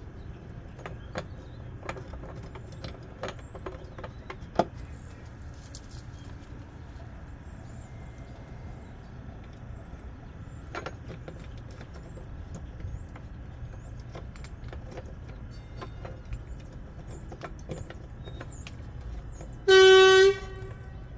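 Small clicks and taps of a hand screwdriver driving the screws of a zinc anode into a boat's trim tab, over a steady low rumble. Near the end a vehicle horn toots once, about half a second long, and is the loudest sound.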